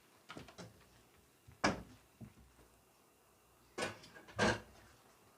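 Hard kitchen objects knocking: a few light taps, then three sharp knocks spread over the next few seconds.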